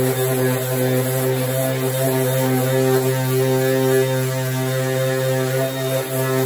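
Electric orbital sander with 120-grit paper running steadily against fiberglass, a constant-pitched motor hum with a grinding hiss of the sanding.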